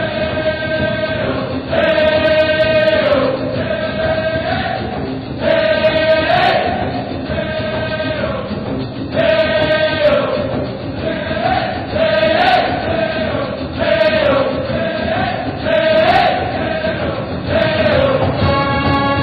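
Music with a choir singing long held notes in phrases that break every second or two.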